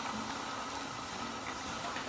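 Taro slices frying in hot oil: a steady, even sizzling hiss.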